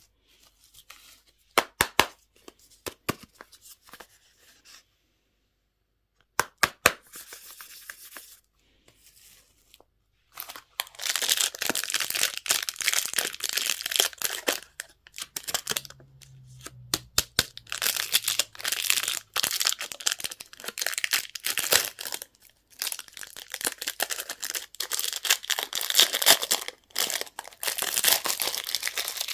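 Candy and toy packaging being handled and torn open: scattered sharp clicks and short rustles, then from about a third of the way in a long run of tearing and crinkling wrapper with brief pauses.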